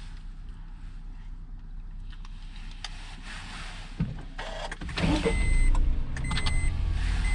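A car knocks once about four seconds in, then its engine rumble rises about five seconds in. A high beep then repeats about once a second.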